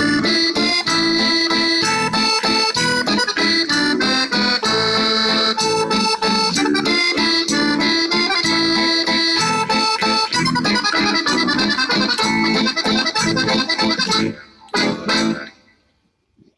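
Sicilian jaw harp (marranzanu) twanging in a fast, steady rhythm, with music. It breaks off about fourteen seconds in, followed by a few last twangs.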